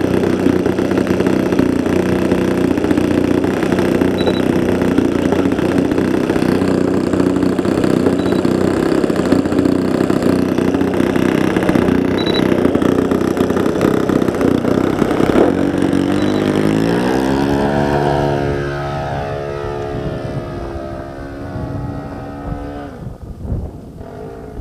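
Small RC model-airplane engine running steadily close by. About fifteen seconds in, its pitch rises as it is throttled up, and it then fades as the plane flies off into the distance.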